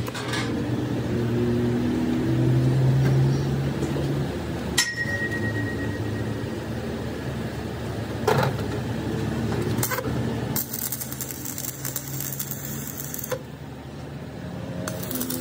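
Steady workshop hum with metal clinks, one ringing briefly about five seconds in, then a few seconds of crackling from stick welding on a broken crankshaft being built up.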